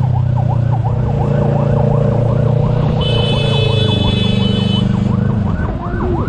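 Ambulance siren in fast yelp mode, rising and falling several times a second, over the steady hum of a motorcycle engine. A high steady tone sounds for about two seconds in the middle.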